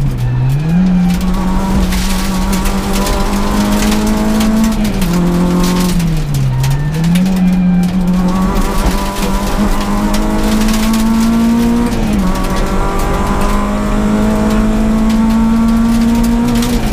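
Peugeot 106 S16 rally car's 1.6-litre sixteen-valve four-cylinder engine, heard from inside the cockpit, held high in the revs under hard acceleration. The revs drop sharply and climb back twice, near the start and about six seconds in, as the car brakes and changes down for corners, with a quick gear change around twelve seconds in.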